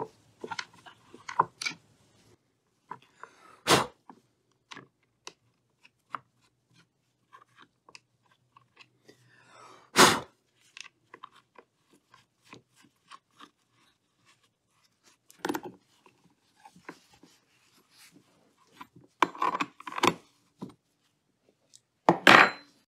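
Gloved hands handling a chainsaw's plastic side cover and its bar nuts on the studs: scattered small clicks, rattles and scrapes, with a handful of louder sharp knocks spread through.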